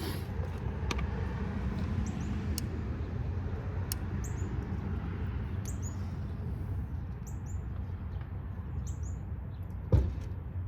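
A steady low rumble, with a bird chirping a short falling note about every second and a half. There are faint light clicks of tools being handled, and a sharp knock near the end.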